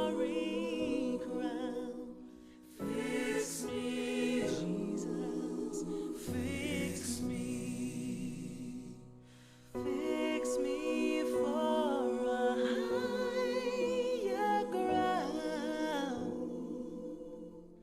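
Voices singing a slow gospel spiritual a cappella in harmony, with long sustained notes and vibrato. The singing breaks off briefly about two and a half seconds in and again about nine seconds in.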